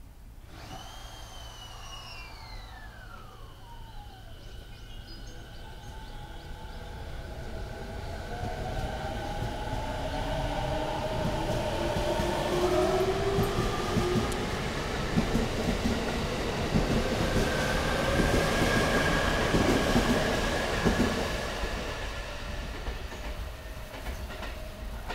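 JR Musashino Line electric commuter train pulling out of the station and running past: a falling whine early on, then motor tones and wheels clattering on the rail joints, building to loudest as the cars go by and fading away near the end.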